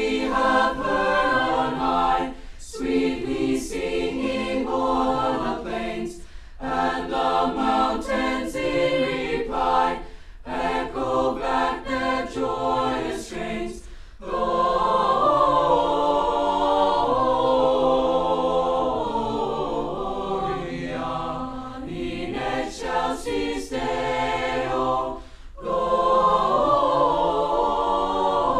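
A choir singing, in phrases broken by short pauses, with a longer held passage about halfway through.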